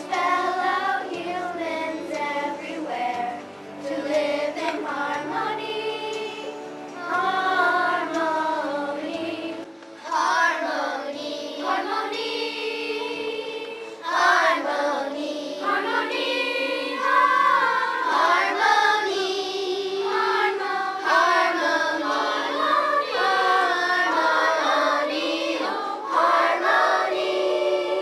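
A children's choir of third to fifth graders singing a song together, phrase after phrase, with brief breaks between phrases.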